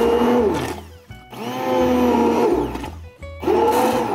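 Handheld immersion blender pureeing a pot of cooked tomato soup. It runs in three bursts, stopping about half a second in and again near three seconds, and its whine drops in pitch each time it is let off.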